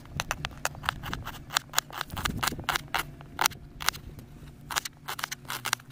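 Kitchen knife slicing red onion on a cutting board: quick, irregular taps of the blade hitting the board, several a second.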